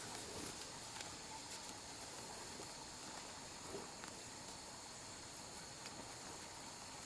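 Steady rural background of insects calling, with a few faint short rustles and ticks from paper banknotes being counted by hand.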